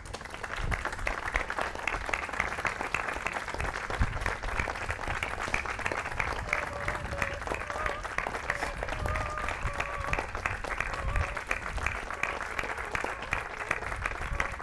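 Audience applause: dense, steady clapping that comes in suddenly at the start.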